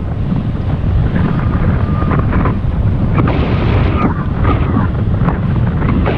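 Wind buffeting the microphone of a camera riding on a moving bicycle, a steady loud rumble.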